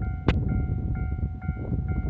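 Japanese level-crossing warning bell ringing, an electronic chime struck about twice a second, over a steady low rumble. One sharp clank sounds about a third of a second in.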